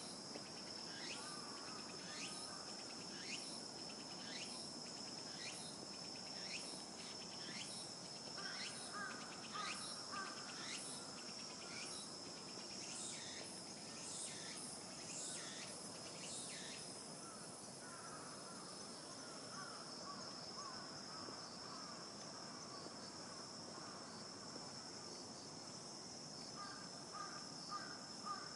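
Night insects, crickets among them, keeping up a steady high trill. For about the first half, a quick falling chirp repeats more than once a second over it, then stops. Scattered lower chattering calls come and go.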